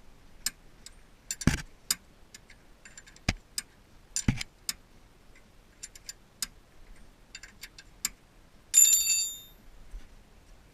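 Hand tools and metal parts clicking and clinking at irregular intervals, with a few sharper knocks. Near the end one bright metallic clink rings briefly.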